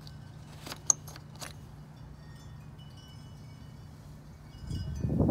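A few light metallic clicks from the handled radiator cap over a low steady hum. Near the end a loud rough rustling noise builds up.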